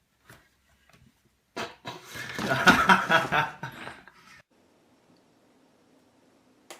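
A person laughing in a burst of about three seconds, starting a second and a half in.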